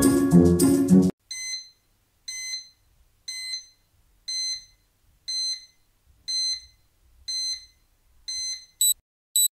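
Tinkly background music that cuts off about a second in, followed by electronic alarm beeping: one high beep about every second, eight in all, then a few shorter, quicker beeps near the end.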